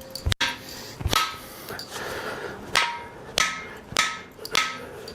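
Hammer blows on metal, about six strikes with a short metallic ring after each, driving a piston with seized rings out of a rusted cylinder in a 350 Chevy small-block engine.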